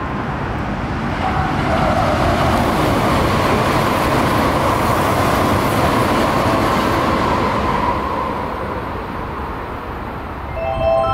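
Toei Asakusa Line 5500 series electric train passing through a station at high speed without stopping: wheel and rail noise and rushing air swell, hold for several seconds with a steady whine, then fade away about eight seconds in.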